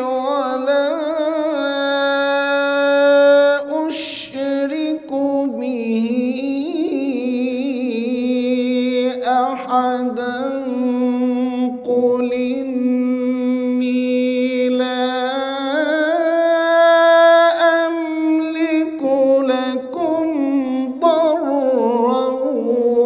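A male Quran reciter's voice in drawn-out melodic mujawwad recitation, holding long ornamented notes with wavering pitch, broken by short pauses for breath, and climbing to a higher note about two-thirds of the way through.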